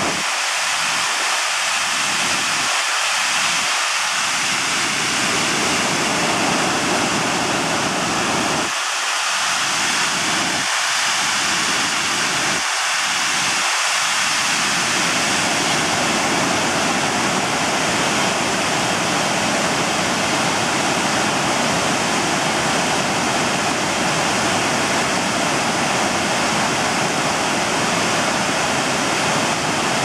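A wide waterfall's steady, loud rush of falling water.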